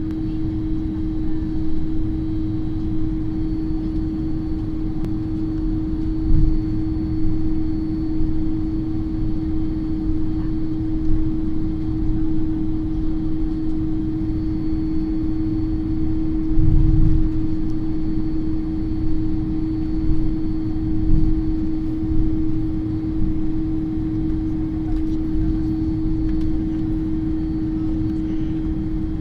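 Boeing 767-300ER jet engines at taxi power heard inside the cabin: a steady drone with a constant hum over a low rumble, with a low thump about six seconds in and another about seventeen seconds in.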